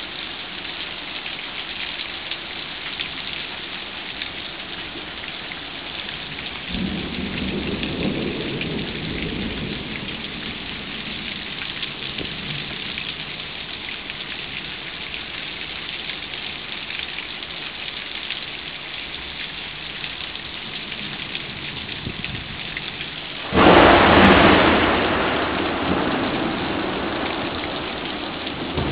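A thunderstorm with heavy rain and hail hissing steadily on pavement. A low roll of thunder starts about seven seconds in and fades over a few seconds. Much later, a sudden loud thunderclap cracks and rumbles away over several seconds.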